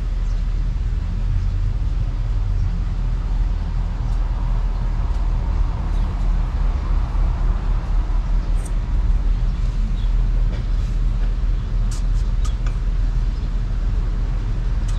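Steady low rumble of background noise, with a few light clicks and taps in the second half from the ArcDroid CNC's stylus and shuttle being handled on its rail.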